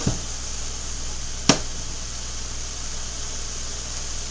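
Marinated steaks and onions sizzling in frying pans, a steady hiss as the marinade liquid cooks off. There is a light knock at the start and a single sharp click about a second and a half in.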